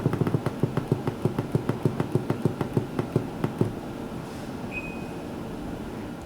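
Rapid clicking of the Samsung MWR-SH00N wired air-conditioner controller's button, pressed over and over to raise the set temperature past its old upper limit, about six clicks a second, stopping a little over halfway through. A short high beep sounds about a second later.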